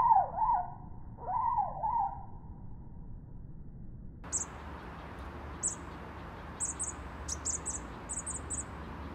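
Chickadee calling. It opens with a few loud, swooping scolding calls in the first two seconds. About four seconds in, the background hiss rises suddenly, and after that comes a scatter of thin, very high chips.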